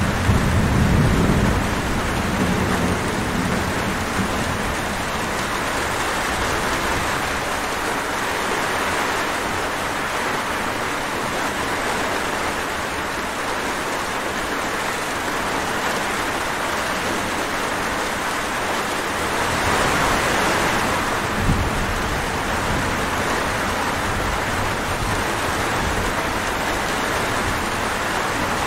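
Steady rain falling, with a low rumble of thunder at the start and again about two-thirds of the way through.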